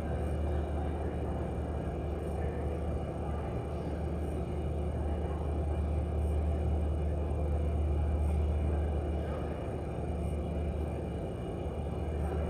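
Steady low hum under an even rushing noise, with no distinct events: the room tone of a large empty gymnasium.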